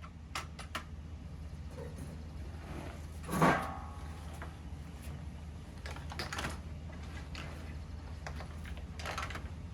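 Light clicks and knocks of gear being handled, with one louder clunk about three and a half seconds in, over a low steady hum.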